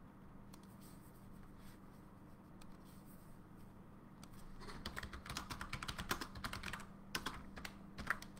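Typing on a computer keyboard: a quick run of key clicks starting about halfway in, then a few single taps near the end, over a faint steady hum.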